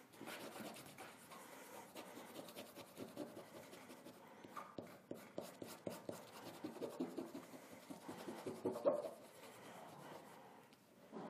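Paper being rubbed and pressed by hand against cotton-linen canvas: faint, irregular scratching and rustling as a laser-printed photocopy transfer is worked onto the fabric.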